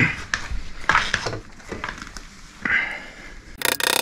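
A new Hagon rear shock absorber being worked onto its top mounting post on a Royal Enfield Interceptor 650, with light knocks and rubbing of metal and rubber as the bushed eye is pushed on. Near the end comes a quick run of sharp taps from a soft-faced mallet, driving the tight eye onto the post.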